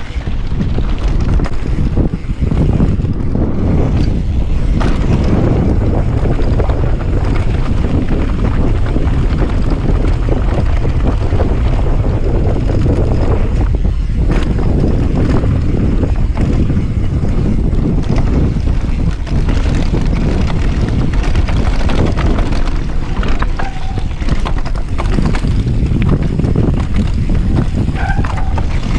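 Wind rushing over the microphone of a camera riding on a downhill mountain bike descending a dirt trail, mixed with tyres rumbling over the dirt. Scattered knocks and rattles from the bike and its suspension come through.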